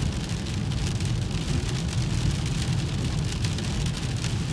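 Heavy rain hitting a car's windshield and roof in many small ticks, heard from inside the moving car, over a steady low rumble of the car rolling on the wet road.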